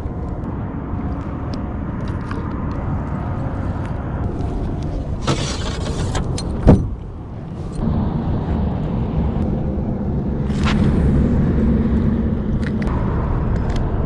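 A boat motor running steadily with a low hum, and one sharp click about halfway through.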